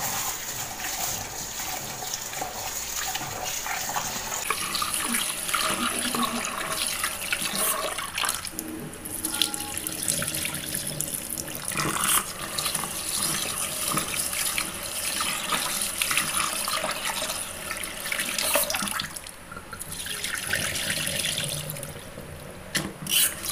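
Kitchen faucet running into a plastic tub of rice in a stainless-steel sink while hands swish and rub the grains in the water, rinsing the rice until the water runs clear. Near the end the cloudy rinse water is poured off into the sink.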